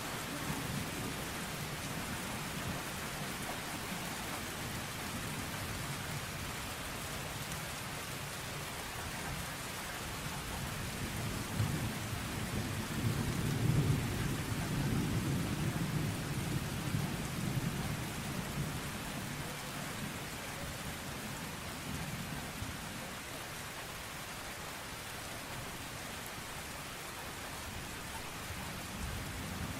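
Steady rain falling, with a low rumble of thunder that builds about eleven seconds in, peaks near fourteen seconds and dies away by about twenty seconds.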